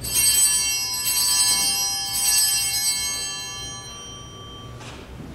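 Small altar bells (Sanctus bells) rung three times, each ring a cluster of high, shimmering tones that then fade out over a few seconds.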